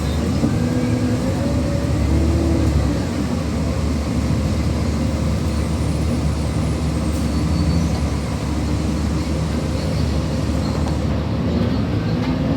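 City transit bus engine and drivetrain running as the bus drives. The pitch glides up and down near the start and rises again near the end.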